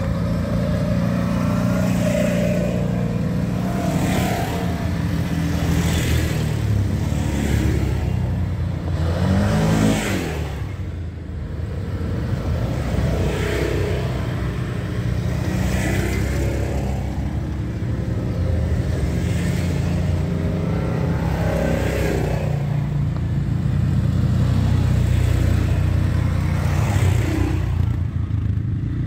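Side-by-side UTV engine running under way on the trail, revving up and easing off every couple of seconds. The pitch drops briefly about ten seconds in before it picks up again.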